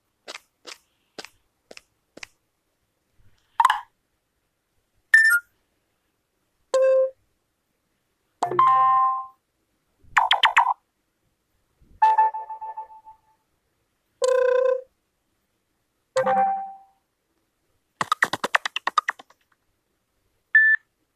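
A series of short UMX phone notification tones played one after another, each a different brief chime or jingle lasting under a second, with silent gaps between. A few faint clicks come before the first tone.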